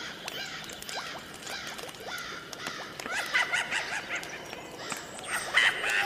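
A dense chatter of short, high animal squeaks and chirps over a faint hiss, a spooky sound effect. The calls crowd together and get louder about halfway through.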